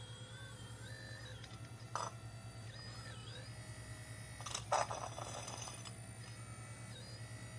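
Scale RC hydraulic excavator (Volvo EC160 model) working: its hydraulic pump runs with a steady pulsing hum while a motor whine glides up and down as the controls are worked, with two short scrapes of the bucket on the cement floor, about two seconds in and near five seconds.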